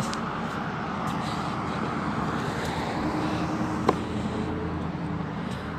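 Road traffic: a car on the road running past, a steady engine and tyre noise, with one sharp click about four seconds in.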